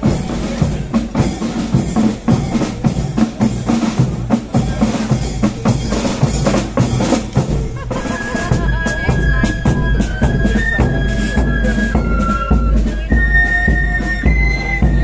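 Marching flute band: side drums and a bass drum beat a marching rhythm, and about eight seconds in the flutes come in with a melody over the drums.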